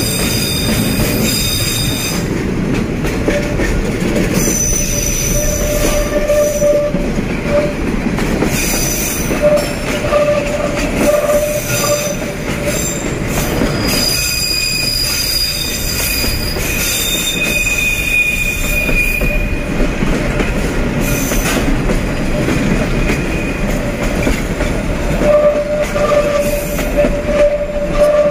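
Freight wagons of an empty container train rolling past close by: a steady rumble of steel wheels on the rails, with high-pitched wheel squeal coming and going in stretches of a few seconds.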